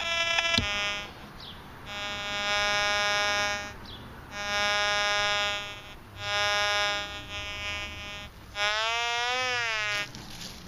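Metal detector with a 6x10 double-D coil giving audio tones over a buried target: a short beep at the start, then three steady buzzy tones of about a second and a half each in pinpoint mode, then one tone that rises and falls in pitch as the coil sweeps across the target.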